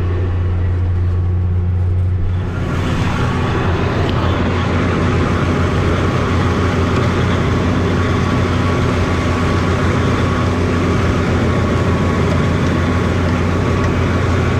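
Farm tractor engine running steadily while pulling a manure spreader. About two and a half seconds in, a louder, even rushing clatter joins it and holds.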